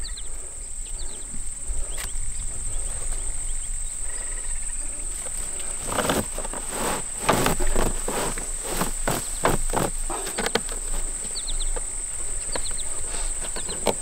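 Rustling and scraping of dry hay and twine as hands tie off and tuck in a bale in a wooden hand-built hay baler, with a flurry of it between about six and eleven seconds in. Under it runs a steady high-pitched insect drone.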